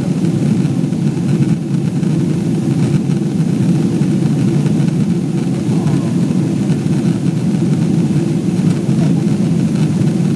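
Steady in-flight cabin noise inside a Boeing 777-200 airliner: the jet engines and rushing air make a constant low rumble with no change in level.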